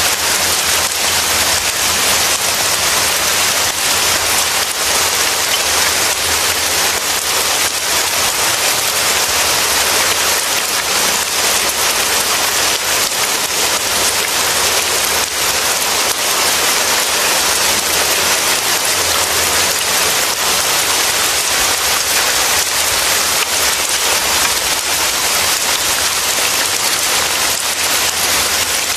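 Steady heavy rain, a constant even hiss with no thunder.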